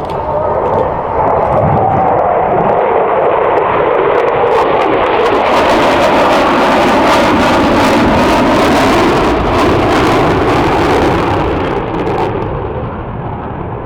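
B-1 Lancer bomber's four afterburning turbofan engines making a flyby: a loud jet roar that builds, is loudest in the middle, and fades away near the end. The onlookers believe the afterburners were lit on this pass.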